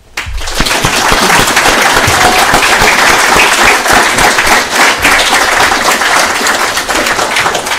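Audience applauding, breaking out all at once and keeping up a dense, steady clapping.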